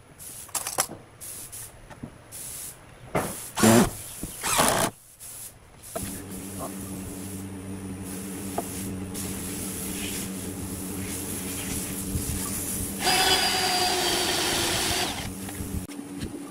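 Cordless Ozito 18 V impact driver running in short bursts, driving screws into pine boards, loudest about three and a half to five seconds in. After that a steady low hum runs on, with a louder two-second sound about thirteen seconds in.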